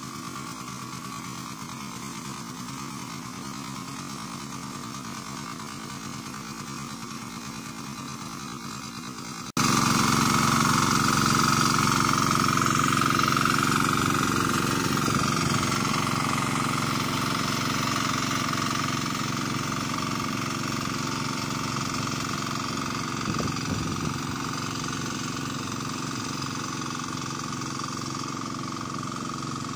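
Yamma 12 hp engine of a turtle-type hand tractor running steadily under load as the tiller works through deep paddy mud. About ten seconds in, the sound jumps louder, then slowly fades.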